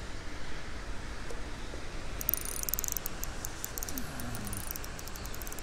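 Light, high clicks come in a quick run about two seconds in, then scatter, along with rustling as fishing gear is handled, over steady outdoor background noise.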